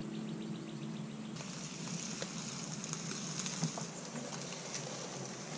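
Golf cart towing a small boat on its trailer, heard faintly: a steady hiss with scattered light ticks and rattles. For the first second or so there is only a low steady hum.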